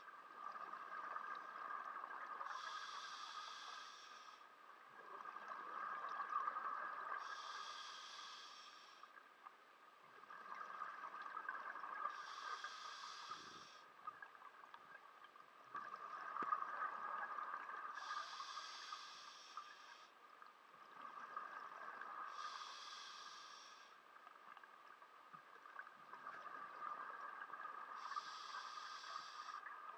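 Scuba diver breathing through a regulator underwater: a short hissing burst about every five seconds, with bubbling swells in between.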